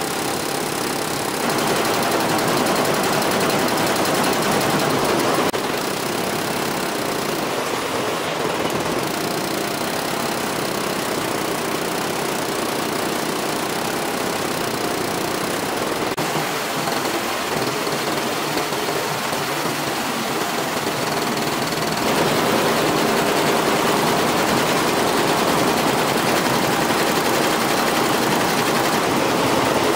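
Multi-head computerized embroidery machine (Jintel) running, its needle bars stitching in a rapid, steady run of strokes. It grows louder a couple of seconds in, drops back after about five seconds, and rises again for the last third.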